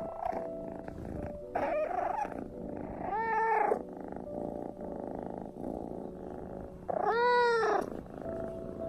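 Kitten meowing three times over a steady purr: a wavering call about two seconds in, then two rising-and-falling meows, the last and longest near the end.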